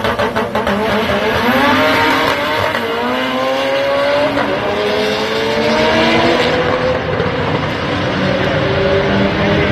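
Two drag-race cars crackle briefly on the start line, then launch at full throttle. Their engines climb in pitch through the gears, with a shift about every second and a half. The sound turns duller as they head down the track.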